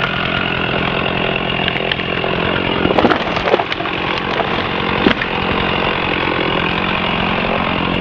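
Stihl 460 Magnum two-stroke chainsaw running at a steady speed while cutting into the base of a hung-up tree. There are a few sharp knocks about three seconds in and again about five seconds in.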